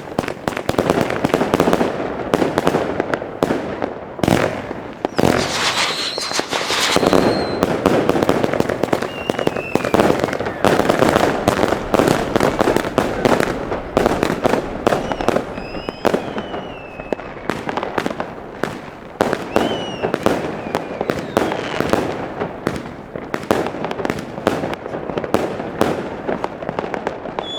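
Iskra Wilk firework cake (battery) firing: a dense, continuous run of shots and crackling bangs, with several short whistles in between.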